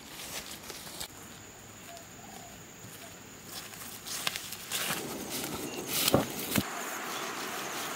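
Rustling of grass and leaves and footfalls as a person walks barefoot through undergrowth, loudest from about halfway to near the end, over a steady high insect drone.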